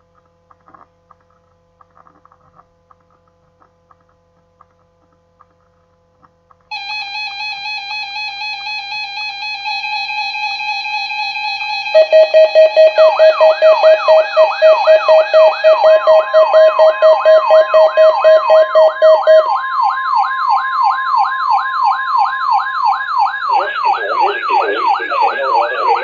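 Several NOAA weather radios sounding their electronic alert tones together for the Required Weekly Test. A steady tone comes in about a quarter of the way in, a loud rapid beeping joins a little before halfway and stops about three quarters in, and a siren-like warble rising and falling about twice a second runs on to the end.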